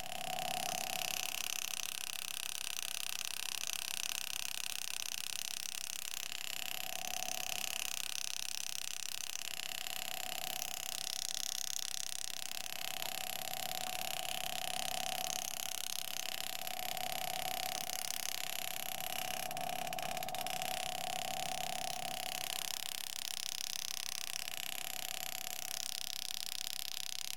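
Graver engraving fine lines into a nickel: a mid-pitched buzz comes and goes in stretches of half a second to three seconds, over a steady hiss.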